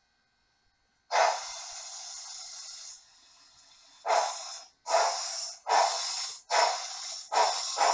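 Sound decoder of an HO-scale Pennsylvania K4 steam locomotive model. About a second in, a loud steam hiss starts and dies down. Steam chuffs begin about four seconds in, coming quicker as the locomotive starts off.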